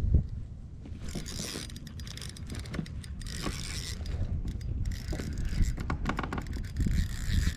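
Pflueger President spinning reel being cranked fast, its gears and bail giving a rapid clicking whir from about a second in. Wind rumbles on the microphone underneath.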